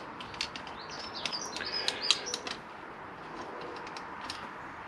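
Light metallic clicks and clinks of bolts with copper washers being handled and started by finger into the Honda VFR800's cylinder head, most of them in the first two and a half seconds. A bird chirps briefly, from about one second in until about two and a half seconds.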